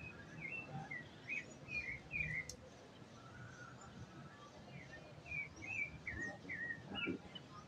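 Small birds chirping: short chirps that dip and rise in pitch, about two a second, stopping for a few seconds in the middle and then starting again.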